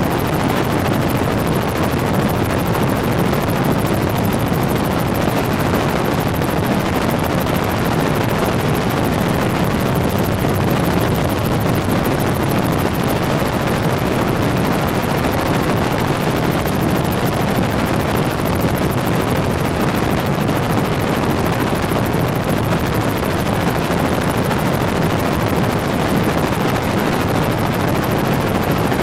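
Helicopter in flight, heard from inside the cabin: a steady, unbroken drone of rotor and engine noise.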